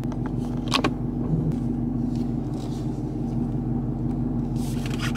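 Cammed 2017 Camaro SS's 6.2-litre V8 idling steadily, heard from inside the cabin, with a brief click about a second in.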